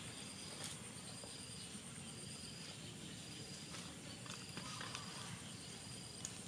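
Outdoor ambience of insects: a steady high pulsing chirr with a short high chirp repeating about once a second, over a low steady background hum.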